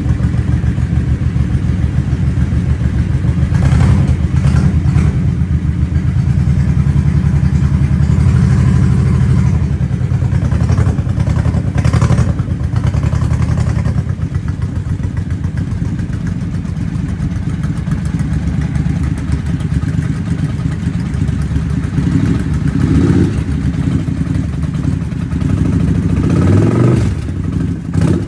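V-twin cruiser motorcycle engine running at a fast, steady idle just after a cold start, with a brief rise in revs near the end.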